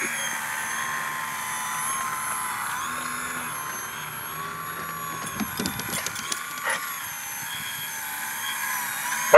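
Electric motor and propeller of an RC aerobatic foam plane whining as it hovers and manoeuvres, the pitch wavering up and down as the throttle is worked.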